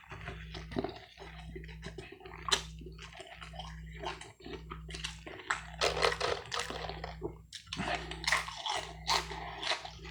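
Close-miked wet chewing and mouth sounds of someone eating, made of irregular smacks and clicks.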